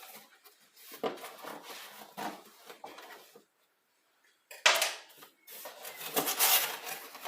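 Irregular knocks, clatter and rustling of vacuum cleaner parts and packaging being handled during unpacking. The machine is not running. The sound drops out completely for about a second a little past halfway, then resumes with a louder knock.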